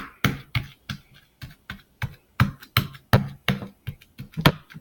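Slime being squished and kneaded by hand, making irregular sticky clicks and pops, about three or four a second.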